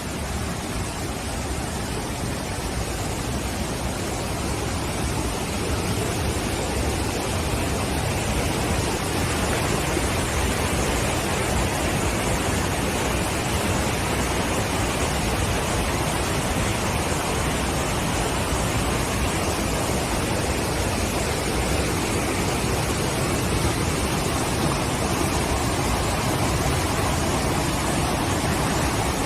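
Salto do Prego waterfall: steady rushing of falling water, growing slightly louder over the first ten seconds or so.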